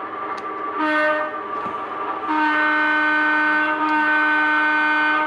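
HO scale model diesel locomotive's sound-decoder horn: a short blast about a second in, then one long, steady blast.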